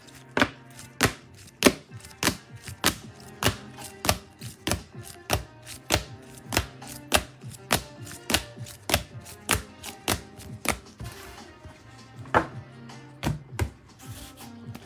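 Trading cards being set down one after another, a sharp tap between one and two times a second that thins out after about eleven seconds, over faint background music.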